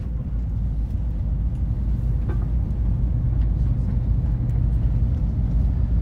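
Steady low rumble of a moving train heard from inside the passenger carriage, with a few faint ticks.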